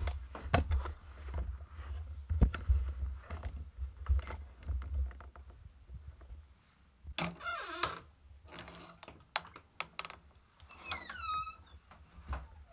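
Close rustling, clicks and knocks over a low rumble, as from a handheld camera being moved about. A squeaky creak comes about seven seconds in, and a short squeak falling in pitch near the end.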